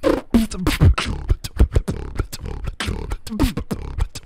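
Human beatboxing into a handheld microphone: a fast run of kick, snare and click sounds with heavy low thumps and a bass line that slides down in pitch.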